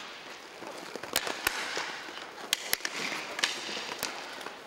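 Inline hockey sticks clacking against a plastic puck during passing play, about six sharp cracks over a steady hiss of room noise, each echoing through the big arena.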